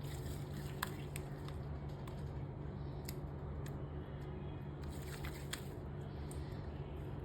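Hands squeezing and stretching a clear glue slime mixed with bits of white plastic: scattered small squishy clicks and crackles over a steady low hum.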